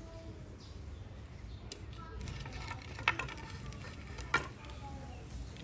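Quiet handling of plastic cord being wrapped and pulled around bamboo poles, with two sharp clicks, about three seconds in and again a second later.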